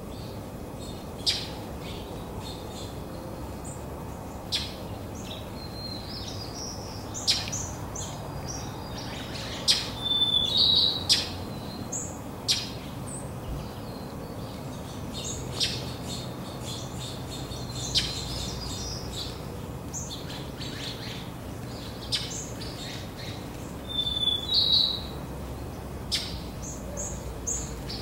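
Small songbirds chirping: sharp single chip notes every few seconds, with two brief twittering runs, one about ten seconds in and one near the end. A steady low hum of distant road traffic sits underneath.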